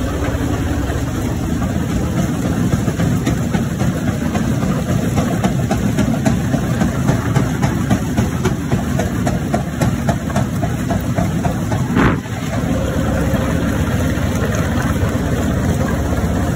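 Mobile jaw crusher running under load: a steady heavy machine drone with a constant crunching and knocking of large rock slabs being broken between the jaws. There is one sharp crack about twelve seconds in.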